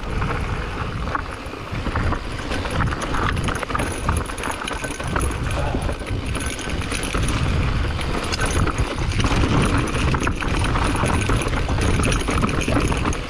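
Specialized Turbo Levo e-mountain bike being ridden over a rough trail: a steady rumble of tyres on dirt and rock, with constant knocks and rattles from the bike and wind buffeting the microphone.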